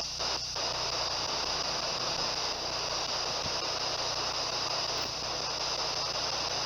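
S-Box ghost box scanner putting out steady radio static and hiss as it sweeps, with two brief drop-outs in the first half-second.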